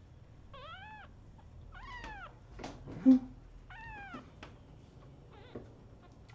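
Young black-and-white kitten mewing three times in the first four seconds, each high, thin call rising then falling in pitch. A brief louder low noise comes about three seconds in.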